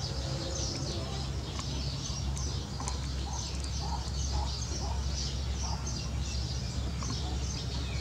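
Small songbirds chirping in a dense, continuous run of short high notes, with lower, softer call notes mixed in between about three and seven seconds in, over a steady low rumble.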